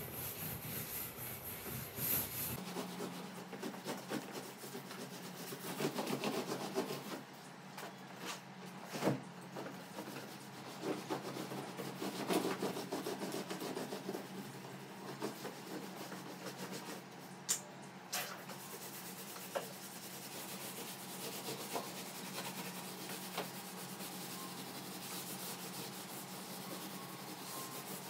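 A cloth scrubbed over a sofa cushion by a gloved hand, in uneven rubbing strokes with a few sharp knocks. The rubbing is busiest in the first half and lighter later. A steady low hum runs underneath from about two and a half seconds in.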